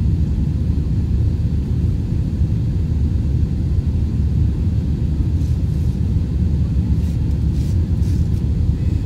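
Steady low rumble of a jet airliner's cabin in flight: engine and airflow noise heard from a window seat, even in level throughout.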